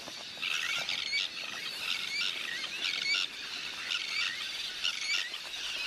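A colony of terns flushed into the air, giving many overlapping high calls: the alarm of disturbed nesting birds.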